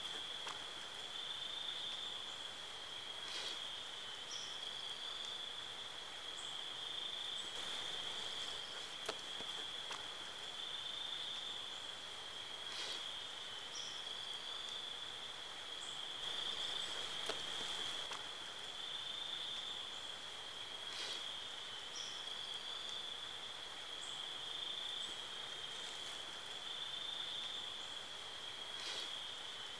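Faint insect chorus: a steady high-pitched trill that never stops, with faint ticks every four seconds or so.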